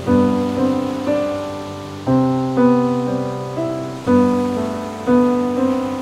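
Solo piano playing relaxation music, notes and chords struck every half second to a second and each ringing away. Underneath is a steady faint hiss of ocean waves.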